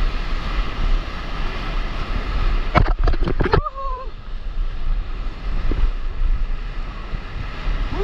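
Wind buffeting the microphone of a camera riding low on a surfboard, over the rush of breaking whitewater surf. About three seconds in, a quick burst of splashes hits the camera, followed by a brief shout.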